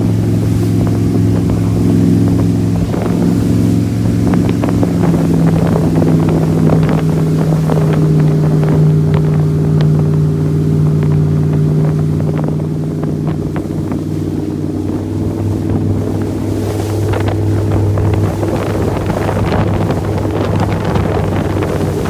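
Bayliner Arriva speedboat's 454 cubic-inch Chevrolet V8 running steadily under way, a constant low engine hum, with wind noise on the microphone and scattered short knocks.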